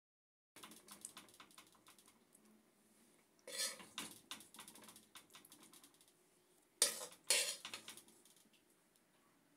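Utensil and earthenware dishes clinking and scraping as sauce is spread: a run of light clicks from about half a second in, a louder clatter about three and a half seconds in, and two sharp knocks around seven seconds.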